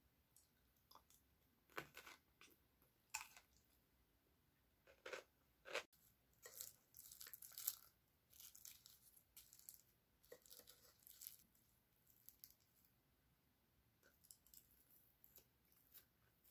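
Thin sheets of dry roasted seaweed (gim) being handled with chopsticks and torn onto rice from a plastic tray: scattered short crackles, crinkles and light clicks, busiest around the middle.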